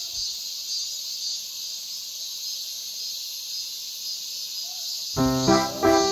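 A steady high-pitched hiss with almost no low sound. About five seconds in, background music with keyboard-like notes comes back in.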